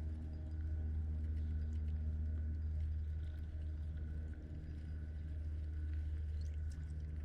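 Steady low mechanical drone at a constant pitch, like a distant engine or motor running, with a few faint ticks on top.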